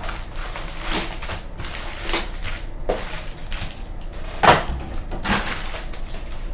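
Trading-card box and pack wrapping being torn open and handled: crinkling and rustling, with one sharp snap about four and a half seconds in.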